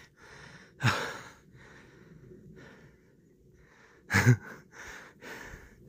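A man breathing hard, out of breath from climbing a steep trail, with two loud voiced breaths out, about a second in and again about four seconds in, and softer panting between.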